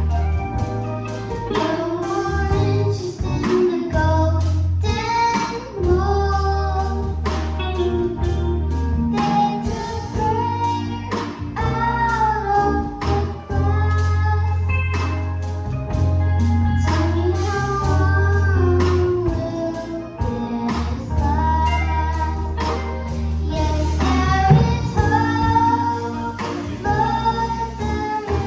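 Children's gospel choir singing with a band accompaniment: a heavy bass line, drums and guitar.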